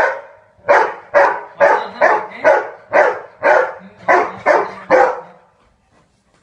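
A Labrador-type dog barking in a steady series, about two barks a second, stopping about a second before the end.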